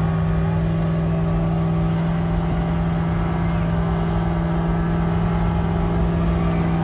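Pickup truck engine held at steady high revs, one unchanging low drone throughout.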